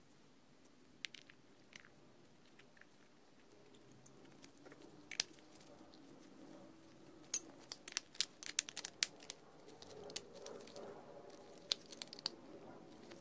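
Faint scattered clicks, taps and crinkles of hands fitting small-engine carburetor parts together: a new bowl sealing gasket and the float bowl going back on. A quick run of clicks comes a little past halfway.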